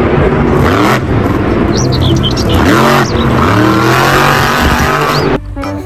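Monster truck's supercharged V8 engine revving hard, its pitch falling and climbing several times, then cutting off abruptly about five seconds in.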